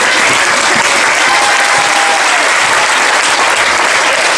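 Large theatre audience applauding loudly and steadily.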